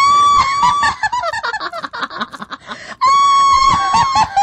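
Ghost-laugh horror sound effect: a high-pitched voice lets out a long held shriek that breaks into rapid cackling, then shrieks again about three seconds in. The cackle falls in pitch near the end.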